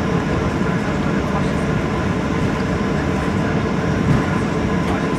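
Cabin noise inside a Boeing 737-900ER rolling on the ground: its CFM56-7B jet engines running with a steady rumble from the fuselage and wheels, and a faint steady whine.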